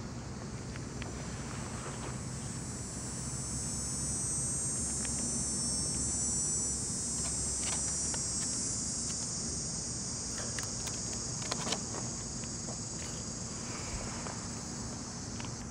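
High-pitched, continuous insect chirring, likely from crickets or grasshoppers, that swells in the middle and fades toward the end. A few light, sharp clicks come about two-thirds of the way through.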